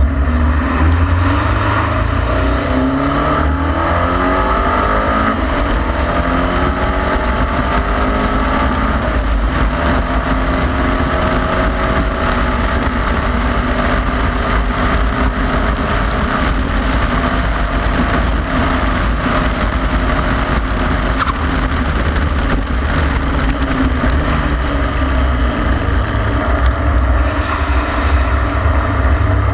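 KTM X-Bow's turbocharged 2.0-litre four-cylinder engine heard onboard from the open cockpit, pulling hard with its pitch climbing over the first several seconds, holding on a long straight, then falling away as the car slows near the end. A heavy low rumble runs underneath.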